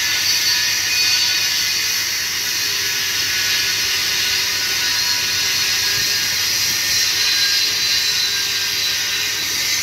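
An electric power tool running steadily with a high whine, at work on the broken crash-guard slider mount of a motorcycle.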